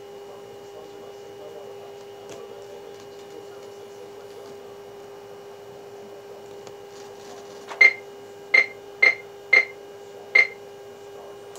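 Five short key beeps from an Icom dual-band D-STAR transceiver as its buttons are pressed to select a new reflector, over a steady low hum.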